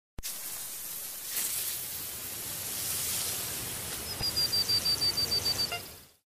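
Steady outdoor hiss of wind and water on a shallow, wet shoreline. About four seconds in, a rapid run of high chirps at an even pitch, roughly eight a second, lasts for about a second and a half and is the loudest sound.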